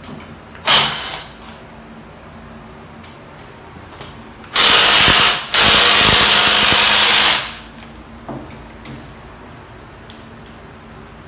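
Power tool run in three sharp-edged bursts: a short one about a second in, then two longer runs of a couple of seconds each around the middle, with a brief stop between them. Light knocks and clicks of tool work on the engine come in between.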